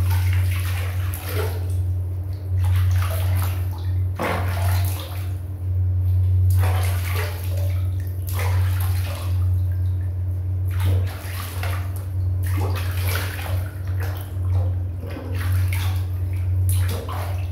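Water splashing and sloshing in a plastic basin as hands scoop and rub water over a kitten being bathed, in irregular splashes every second or so. A steady low hum runs underneath.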